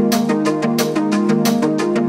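Background music: sustained melodic notes over a steady percussive beat.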